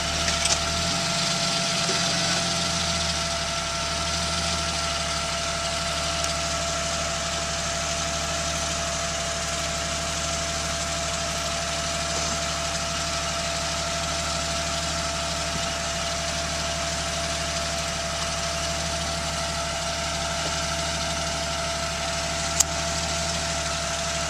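Rock buggy's engine idling steadily, its note shifting briefly about a second in. One sharp click near the end.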